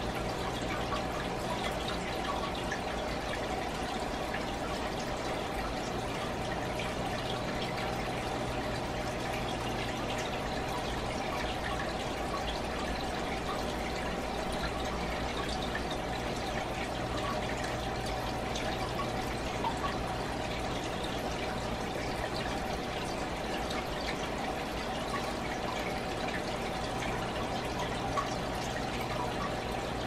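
Fish aquarium's circulating water: a steady trickle with small drips, over a constant low hum.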